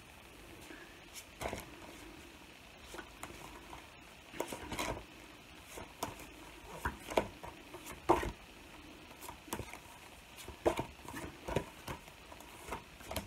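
Light rustles and taps at irregular intervals as cross-stitch charts and packets are handled and pulled out one by one.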